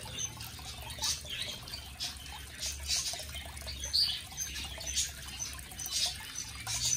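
Water trickling and splashing steadily from a small garden rock fountain, with a few short, high bird chirps scattered through it.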